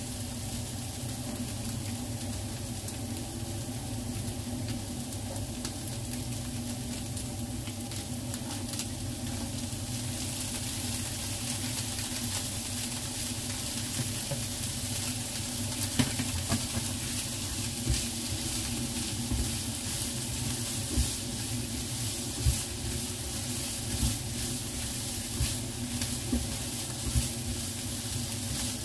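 Diced meat and onions sizzling in a nonstick frying pan. From about halfway, a spatula stirring the pan gives a string of sharp taps and scrapes over the sizzle.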